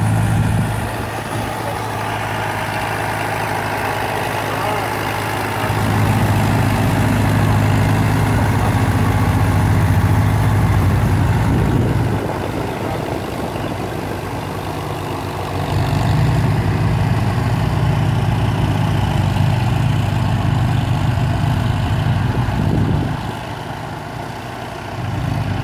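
Farmall M tractor's four-cylinder engine running steadily as it tows a tractor-pull weight sled along the track, its low hum getting louder and quieter in turns.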